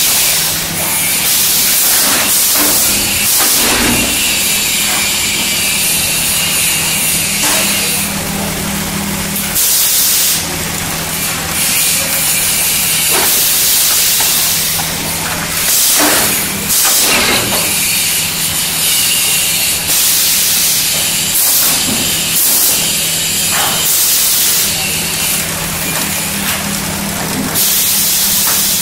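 Vacuum forming machine making plastic seedling cell trays: a steady low hum under loud air hissing that swells and drops every few seconds, with a sharp knock about every six seconds.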